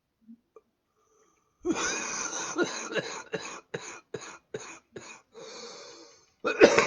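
A man coughing. A long cough comes about a second and a half in, then a quick run of about seven short coughs, a drawn wheezy breath, and another cough near the end.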